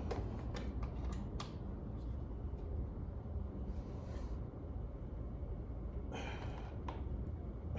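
A few light metallic clicks and knocks in the first second and a half, as parts are fastened back after a brake pad change, with two heavy breaths, near the middle and about six seconds in, over a steady low rumble.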